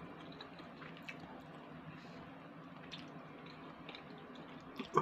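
Faint wet mouth sounds of a person eating pasta with chopsticks, sucking in and chewing the noodles, with a few small clicks now and then.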